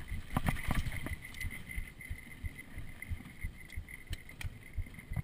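Mountain bike rolling down a rough dirt trail, heard from a chest-mounted GoPro Hero2: low rumble and irregular thumps as the bike rattles over bumps, with a few sharper knocks about half a second in.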